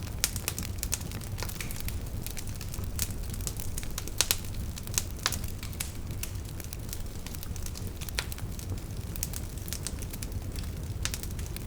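Wood fire burning in a fireplace, logs crackling and popping with irregular sharp snaps over a steady low rumble of flame.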